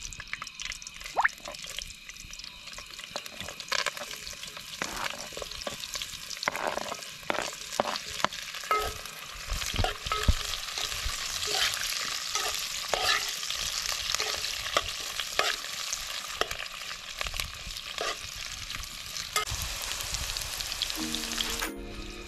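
Food sizzling as it fries in a cooking pot for bagara rice, with a utensil stirring and scraping at irregular moments. Music comes in near the end.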